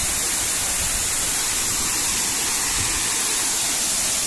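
Waterfall pouring over rocks into a pool: a steady, unbroken rushing hiss.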